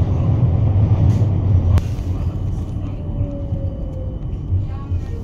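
Steady low rumble of an Oslo SL18 tram running on its rails, heard inside the passenger cabin. A sharp click comes about two seconds in, and the rumble eases off after it. A faint falling whine follows.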